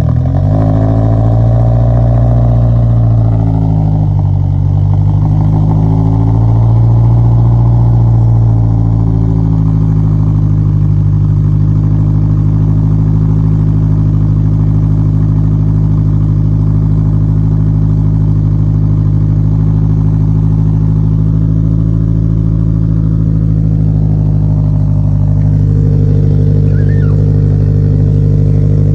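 Engine running on E85 ethanol fuel just after a hard start. Its speed rises and dips unevenly for the first several seconds, then settles into a steady idle.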